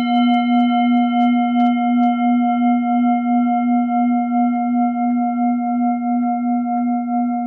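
A steady, sustained low hum-like tone with a few fainter ringing overtones and a gentle wavering pulse in its loudness, cutting off suddenly near the end; a few faint ticks sound under it.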